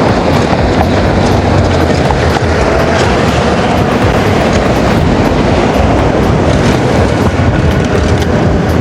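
Loud, steady wind rush and rumble on the microphone of a rider on an electric unicycle at speed, with faint whines sliding in pitch under it.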